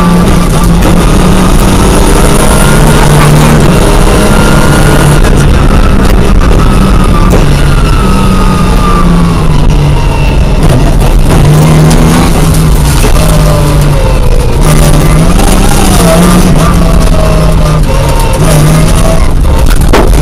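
Opel Ascona rally car's engine heard from inside the cabin, running loud and hard, its pitch rising and falling repeatedly in steps as it accelerates and shifts through the gears.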